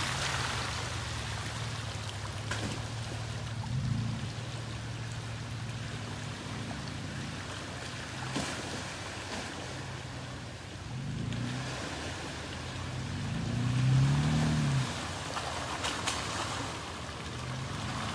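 Toyota FJ Cruiser's engine running slowly as it crawls through a muddy water hole, revving up in several short rises, the strongest about two-thirds of the way through, with water sloshing around the tyres.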